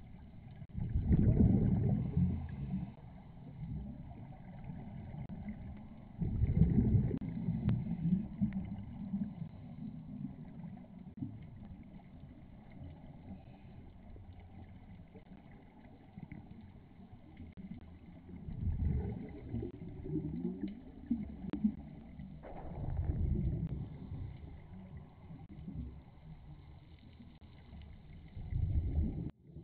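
Scuba divers' exhaled air bubbling out of their regulators underwater, a muffled low rumble in several separate bursts a few seconds apart, between breaths.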